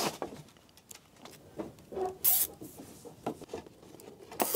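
Electrical cable being handled and pulled over timber roof trusses, rustling and rubbing, with two short zips of nylon cable ties being pulled tight, about two seconds in and near the end.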